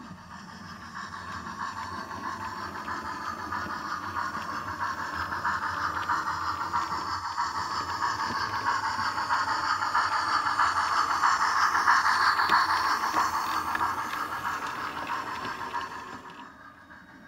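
A 00 gauge model train, an Ivatt tank engine propelling an autocoach, running along the track and rattling past close by. It grows steadily louder, is loudest about twelve seconds in, then fades quickly near the end.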